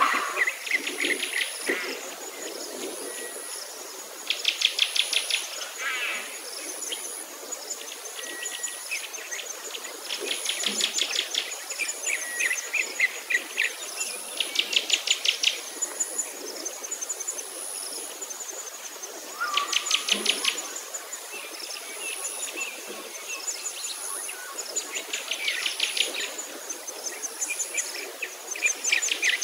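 Insects calling outdoors: buzzy trains of rapid pulses about a second long, repeating every few seconds, over a high, thin, broken trill, with a few short bird chirps.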